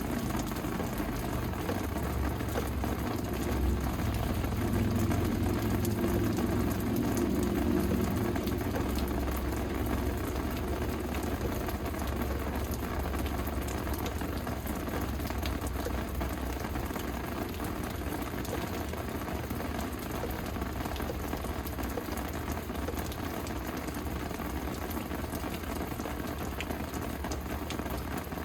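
Steady rain falling, an even hiss dotted with the ticks of single drops. Under it a low rumble swells in the first ten seconds or so and then eases off.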